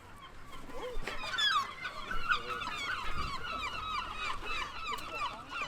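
A flock of herring gulls calling, many short calls overlapping one another, building up about a second in.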